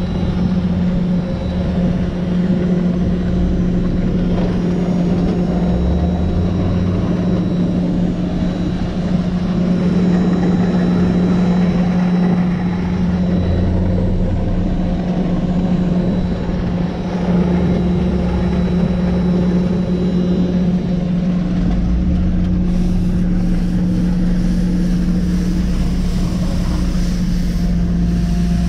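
Nitehawk street sweeper truck on an Isuzu cabover chassis running while it sweeps: a loud, steady drone holds at one pitch, with a deeper engine rumble rising and falling underneath as the truck moves.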